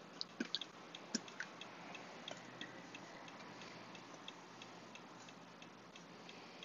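Faint, steady ticking about three times a second, with a few louder clicks of a metal spoon against a stainless saucepan in the first second or so as thick cooked date filling is scraped out.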